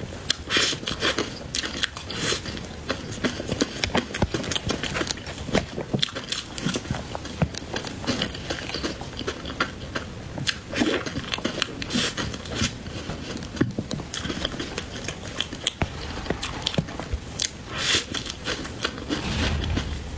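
Close-miked eating: biting and chewing cream cake, with a steady run of small crackling clicks and mouth sounds.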